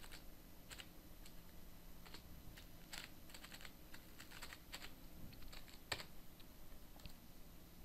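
Faint typing on a computer keyboard: an irregular run of key clicks, with one louder click about six seconds in.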